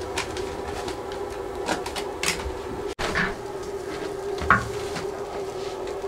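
Kitchen clatter at a fried-rice stove: a metal spatula scrapes and clinks against a large wok of fried noodles and rice, then, after a cut, paper is handled and folded as a portion is wrapped. All of it sits over a steady hum, with the loudest sharp sound about four and a half seconds in.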